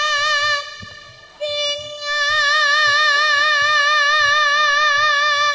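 Javanese gamelan (karawitan) music with a female sinden singing long held notes with a wide vibrato over soft, regular low drum beats. The voice breaks off about half a second in and comes back a second later on a held note lasting about four seconds.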